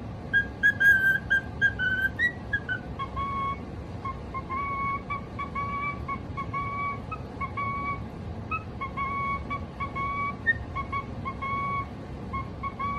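Cockatiel whistling a tune: a quick run of short, higher notes with a few upward slides, then, from about three seconds in, a repeated rhythmic phrase of short, lower whistled notes.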